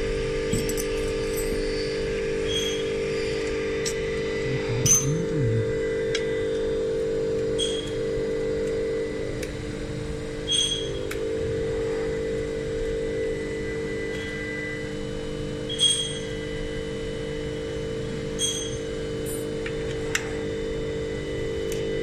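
Vibratory bowl feeder running with a steady hum, its load of M3 self-clinching nuts shuffling in the bowl, with occasional sharp metallic clinks, about seven of them at irregular intervals.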